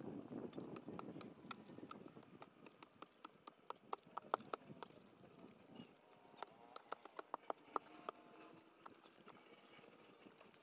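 Hand tool digging into an earth bank: irregular sharp clicks and knocks of metal striking soil and small stones, with scraping and rustling of dirt in the first couple of seconds.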